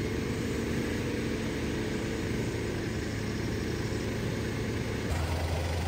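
4x4 vehicle's engine running steadily on a muddy off-road track. About five seconds in, the low hum abruptly gets louder.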